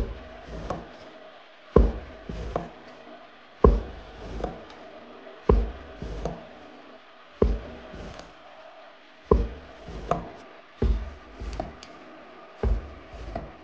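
Background music with a slow, steady beat: a strong low beat about every two seconds, each followed by lighter hits, over a held tone.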